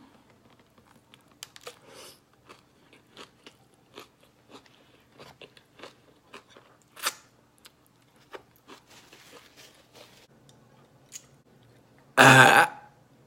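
Close-up eating of crunchy food: scattered crisp crunching bites and chewing. One much louder short burst comes near the end.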